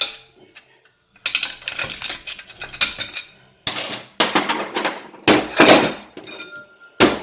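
Steel and friction plates of a 700R4 transmission's forward clutch pack clinking and clattering against each other and the drum as they are lifted out, in several short bouts of metallic clatter with brief pauses between.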